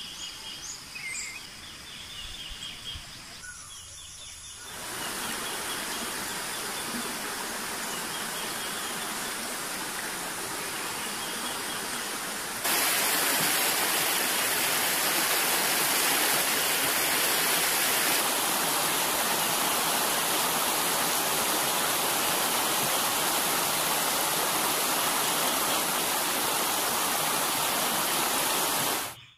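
Birds and insects calling for the first few seconds. Then shallow water rushes steadily over rocks in a small stream cascade, growing louder about halfway through and cutting off abruptly at the end.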